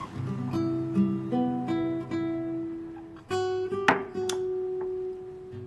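Acoustic guitar music: plucked notes ringing out, with a new chord struck about three seconds in.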